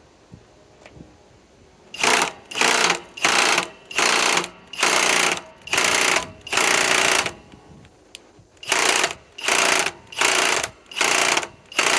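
Master Force Boost hydraulic (oil-pulse) impact driver hammering in short trigger bursts, about a dozen of them with a pause in the middle, without breaking loose a bolt torqued to 60 foot-pounds.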